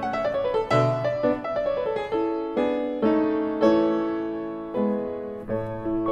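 Solo piano music: struck notes that ring and fade, with short runs stepping downward over lower held notes.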